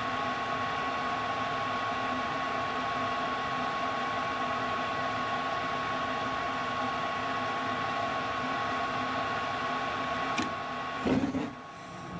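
Steady hiss of a propane torch flame on a gas furnace's surface igniter, over the high, even whine of the furnace's combustion air inducer motor. Near the end comes a sharp click and a brief louder rush, after which the hiss falls away: the gas beginning to flow, the cue to pull the torch off.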